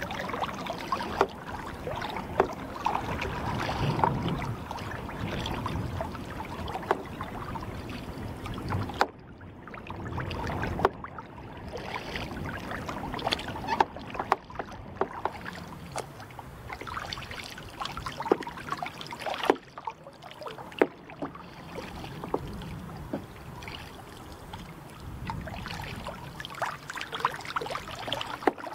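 Water splashing and lapping around a paddled kayak on calm sea water: a steady wash with many irregular small splashes and drips from the paddle.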